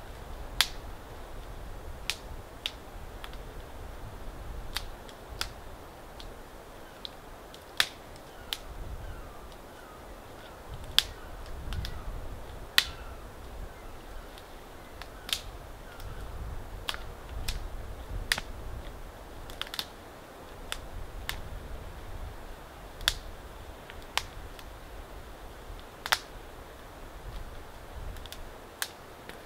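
Dry kindling twigs snapped by hand, a sharp crack every second or so at irregular intervals, over a steady low rumble.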